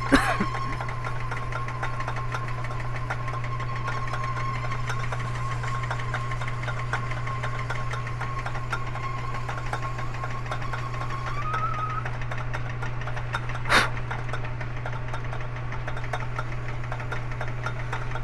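A machine tool's electric motor running steadily with a hum and a high whine while a boring tool side-cuts into a soft plastic cue-ball shifter knob; the whine rises slightly in pitch near the end, and there is one sharp click about fourteen seconds in.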